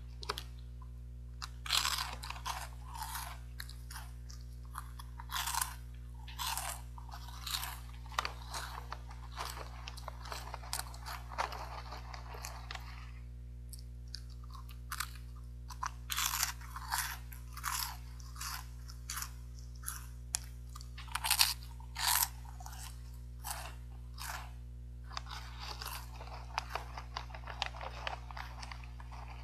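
Crunching and chewing of caramel-coated corn puffs and peanuts from a Caramel Corn & Peanut snack bag, in irregular crisp bites one after another, with a steady low hum underneath.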